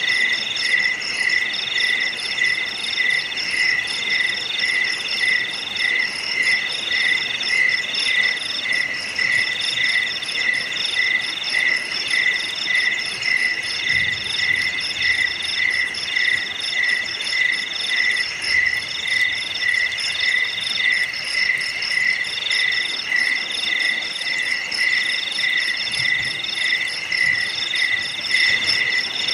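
Night chorus of crickets and other insects: several calls layered together, a lower chirp repeating a few times a second under higher, steadier trills and on-and-off buzzing phrases.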